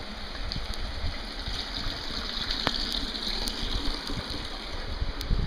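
Steady rain falling, with water running and trickling. The hiss swells a little in the middle, and scattered sharp drops land close by.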